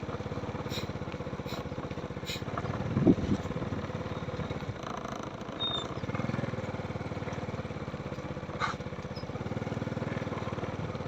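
A small engine running steadily, with a few short clicks early on and a louder low thump about three seconds in.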